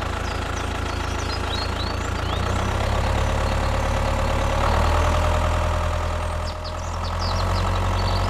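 An engine idling steadily. It gets a little louder about two and a half seconds in and dips briefly about six and a half seconds in.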